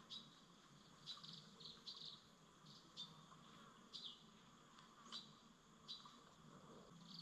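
Faint riverside wildlife: short, high chirps repeating roughly once a second, some falling in pitch, over a faint steady background hum of the forest.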